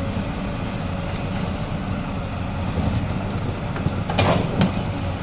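Komatsu PC200 excavator's diesel engine running steadily, with two short knocks about four seconds in.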